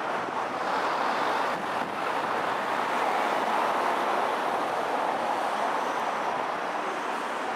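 Steady rushing noise of city street traffic, with no single engine standing out, swelling a little a few seconds in.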